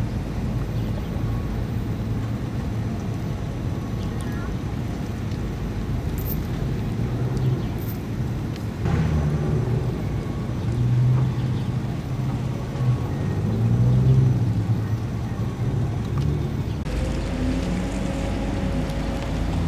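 Vehicle engines idling: a steady low rumble that swells louder a few times. The background changes abruptly near the end.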